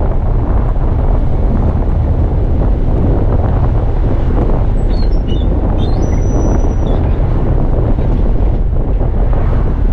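Bus driving along the road: a steady, loud rumble of engine and road noise, with wind buffeting the microphone.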